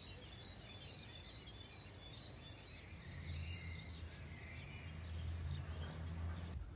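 Birds chirping and calling faintly in short, scattered notes, over outdoor ambience. A low steady rumble joins about halfway through and stops near the end.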